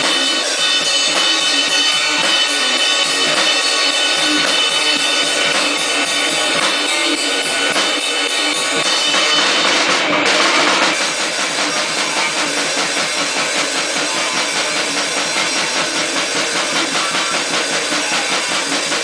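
Harsh, distorted grindcore noise music with fast, rapid drumming and a thin, bass-light sound. About ten seconds in it drops a little in level and changes to an even faster, more regular beat.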